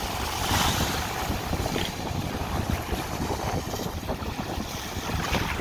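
Small waves washing up over wet sand at the shoreline, with wind buffeting the microphone as a steady rumble; one wave wash swells about half a second in.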